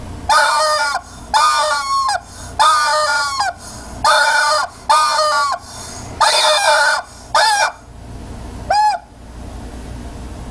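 Rubber chicken toy squeezed again and again, giving a run of loud, wavering squawks, about seven long ones and a short final squawk near the end.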